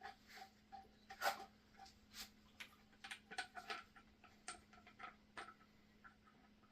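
Faint, irregular clicks and light taps of small metal engine parts being handled as the valve inspection caps are fitted back onto a Yamaha TTR125's cylinder head, over a faint steady hum.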